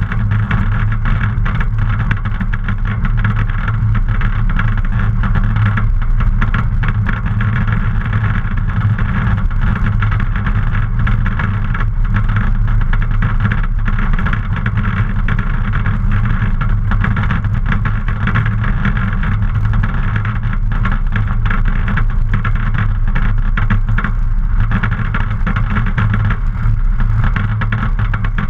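Luscombe light airplane's engine and propeller running steadily as the plane taxis across a grass runway.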